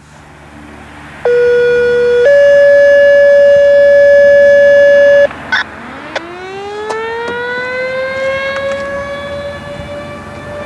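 A loud two-tone electronic tone: a lower one for about a second, then a higher one for about three seconds, cutting off abruptly. Then a Thunderbolt 1000 civil defense siren starts winding up, its pitch rising steadily and beginning to level off near the end, with its blower malfunctioning.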